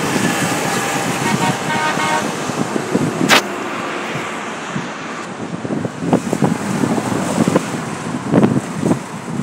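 Road traffic passing on a multi-lane road, with a vehicle horn sounding steadily for about the first two seconds. A single sharp click comes a little after three seconds in.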